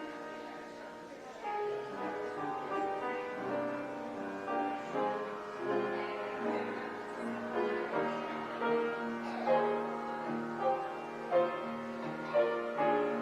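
Piano playing an instrumental piece, melody notes over sustained chords.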